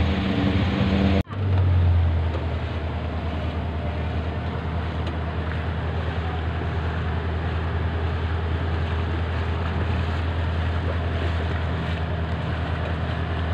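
Off-road car's engine running steadily as it drives slowly through floodwater, with a constant wash of water noise. The sound cuts out abruptly for an instant about a second in, then carries on steadily.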